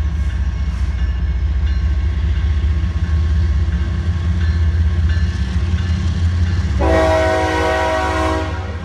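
CSX GE ES44AH diesel locomotive running with a heavy, steady low rumble as it approaches with its autorack train. About seven seconds in, it gives one blast of its multi-note air horn, lasting about a second and a half.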